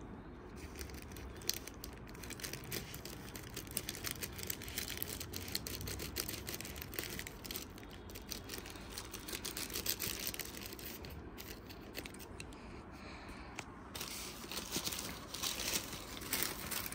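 Packaging being crinkled and torn open by hand as a component is unwrapped: irregular crackling, busiest near the end.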